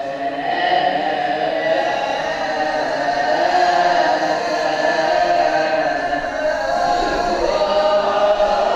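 A group of voices singing a chant together, steady and continuous.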